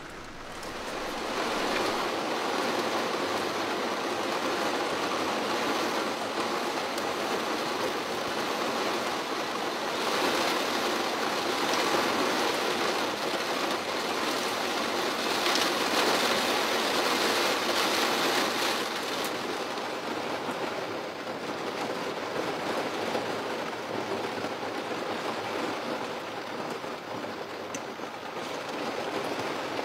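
Heavy typhoon rain falling steadily. It builds about a second in, is heaviest in the middle and eases a little in the last third.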